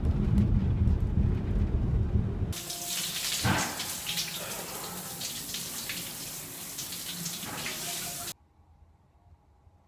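Low rumble of road noise inside a moving car for about two and a half seconds, then a sudden switch to a shower spraying water and splashing on a person, which cuts off abruptly near the end.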